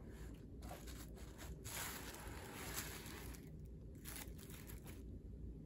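Faint handling noise: a latex mask with synthetic hair being touched and turned by hand, with several soft brushing and rustling sounds over a low hiss.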